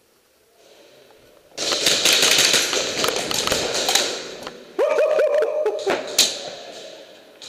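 Airsoft BBs from full-auto fire pounding into a wall in a dense, rapid rattle, starting about a second and a half in and lasting about three seconds, with a second burst about five seconds in and a single sharp crack near six seconds.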